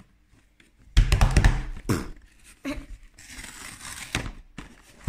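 A cardboard collection box with a plastic window handled and turned right against the microphone. A burst of knocks and rubbing comes about a second in, then a few knocks and a softer scraping rustle.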